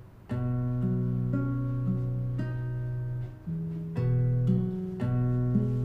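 Background score led by a plucked guitar, with chords that change every half second or so and a brief break just after the start.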